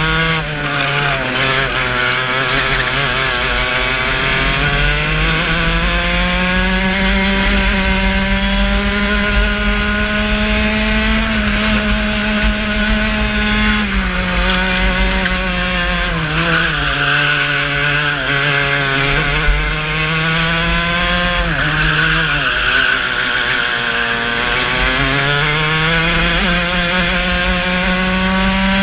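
Racing kart engine at full race revs, recorded on board: its pitch climbs steadily on the straights and drops sharply as the kart slows for corners, several times over.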